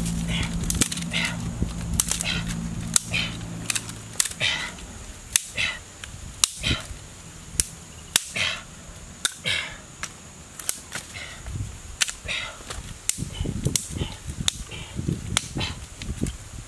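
Dry sticks and twigs snapped and broken by hand: a run of sharp, irregular cracks, one or two a second, with short crackles of dry twigs and leaf litter between them.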